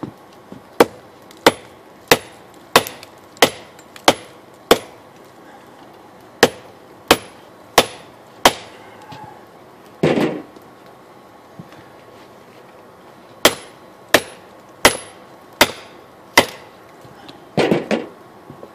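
Hand hammer striking red-hot steel from an old wrench on an anvil: three runs of evenly paced blows, about three every two seconds, with pauses between the runs. A rougher clatter of metal comes about ten seconds in and again near the end.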